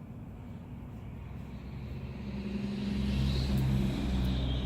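A motor vehicle's engine rumbling low and growing louder about halfway through.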